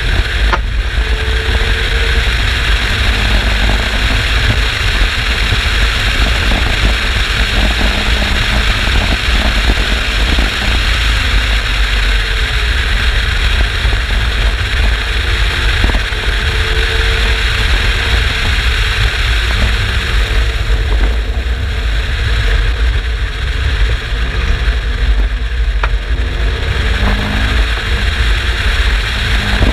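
Turbocharged Mazda MX-5 BP four-cylinder engine in an Exocet kit car at speed, its note rising and falling repeatedly. A heavy, constant rumble of wind on the microphone covers much of it.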